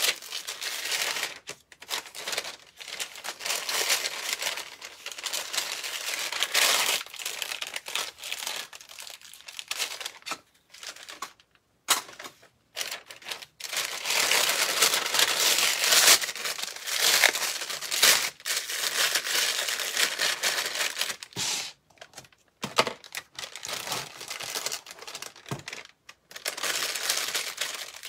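Clear plastic piping bag crinkling as it is handled and folded, in irregular bursts with a few short pauses.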